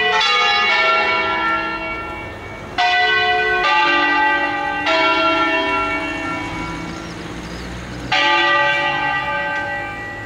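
Church bells cast by Angelo Ottolina in 1947, five of them rung in a 'concerto solenne': about six single strokes at uneven gaps of one to three seconds, each a sudden clang that is left to ring out slowly.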